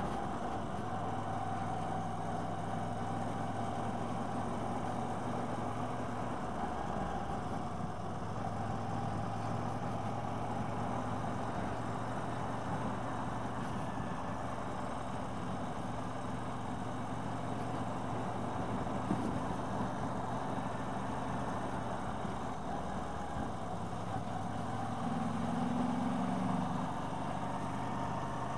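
Motorcycle engine running steadily while riding along a road, with wind and road noise, heard from the rider's helmet. A deeper hum swells for a couple of seconds near the end.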